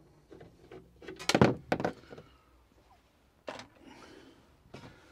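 A screwdriver and hands working on the metal cover of a Chinese diesel heater to undo its screws: a few sharp knocks and clicks, the loudest two close together about a second and a half in.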